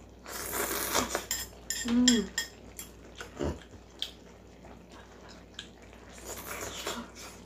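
Someone eating a noodle hot pot: a slurp, several sharp clicks of utensils against a bowl, and a short hummed vocal sound about two seconds in. A dull knock comes about three and a half seconds in, and another slurp near the end.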